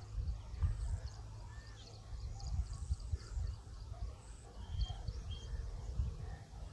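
Wind buffeting the microphone in uneven low rumbles, with faint bird chirps over it.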